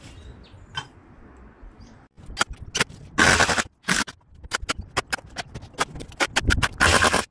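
Hammer driving nails through a metal hold-down bracket into a timber wall frame: a quick run of sharp blows, about five a second, broken by a few longer harsh noisy bursts.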